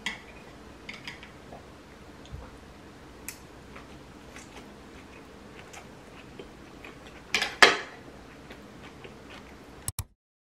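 Wooden chopsticks lightly clicking and tapping against a wooden plate, with two louder clatters close together about seven and a half seconds in.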